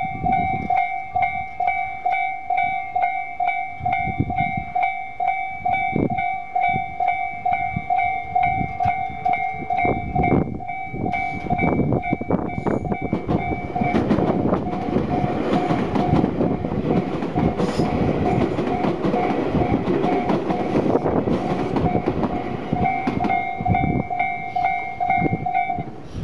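Electronic level-crossing bell of the Tobu Railway's common type, ringing in a steady, evenly repeating ding-ding. About halfway through, a train passes over the crossing. Its rolling noise and wheel clatter mostly cover the bell for several seconds, and the bell rings clearly again near the end before stopping.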